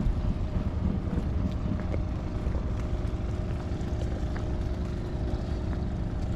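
Steady low drone of a fishing boat's engine running, with a few faint clicks and knocks over it.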